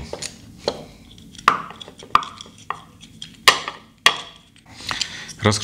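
Small metal screws and a screwdriver clicking and tapping against a stove plug's plastic housing as its terminal screws are undone and removed by hand: about six sharp, separate clicks, a couple with a short metallic ring.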